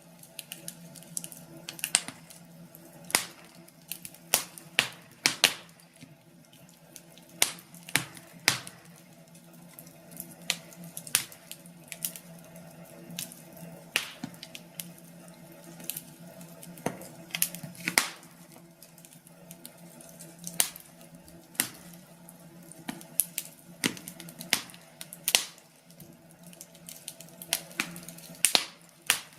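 Wood fire burning in a fireplace, crackling with irregular sharp pops about once or twice a second over a faint steady hum.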